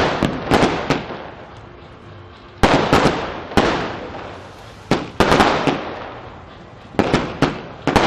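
Fireworks going off: about ten sharp bangs in clusters of two or three, each trailing away in an echo.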